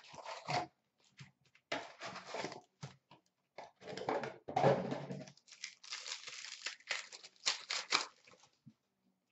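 Box of Panini Contenders hockey cards being torn open and its card packs handled, in irregular bursts of tearing and crinkling, loudest around halfway.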